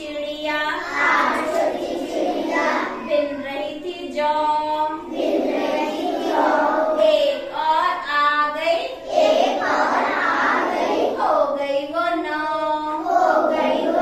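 A group of young children singing a Hindi counting rhyme together in chorus.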